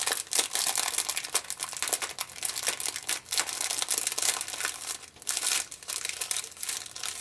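Clear plastic bag crinkling as hands fold it, press it flat and lift it, a dense run of irregular crackles.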